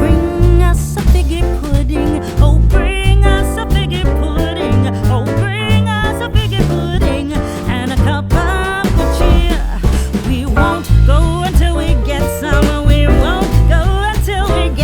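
Background music with a steady beat, a moving bass line and a wavering lead melody.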